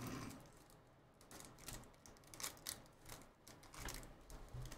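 Foil trading-card pack wrapper crinkling faintly under fingers that pick and pull at a seal that won't tear open, a scatter of small crackles and ticks.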